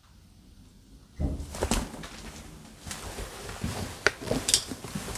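Irregular knocks and clatters starting about a second in, with several sharp loud knocks near the end.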